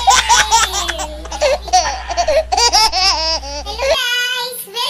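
A woman laughing and shrieking in high-pitched bursts, with a low hum underneath that stops about four seconds in.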